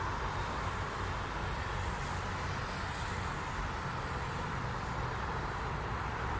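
Steady road traffic noise: cars, vans and trucks passing on a multi-lane road, a continuous hum of tyres and engines with no single vehicle standing out.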